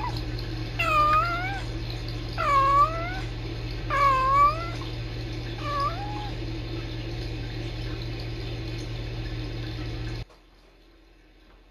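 Kitten calling: four short meow-like calls about a second and a half apart, each dipping then rising in pitch. A steady low electrical hum runs underneath and cuts off suddenly about ten seconds in.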